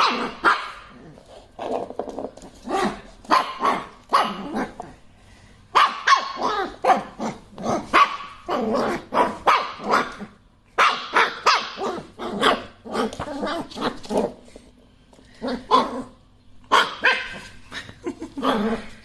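A dog barking repeatedly, in runs of barks with short gaps between them.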